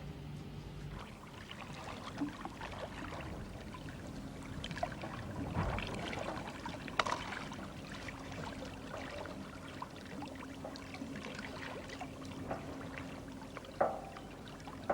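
Water gently splashing and trickling, with small irregular knocks and clicks. A faint steady hum sits underneath from about four seconds in until near the end.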